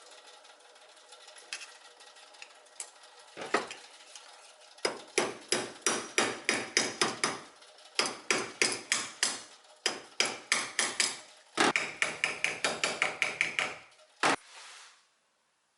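Hammer tapping in quick runs of about four to five light blows a second, with short pauses between runs and single strikes before and after.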